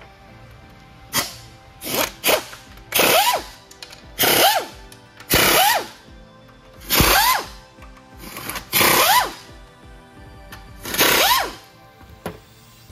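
Handheld power tool run in about nine short trigger bursts, roughly one a second, its pitch rising and falling with each burst.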